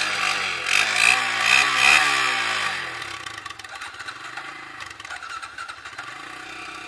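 Small ATV engine revved up and down a couple of times, then settling to a steady idle about three seconds in.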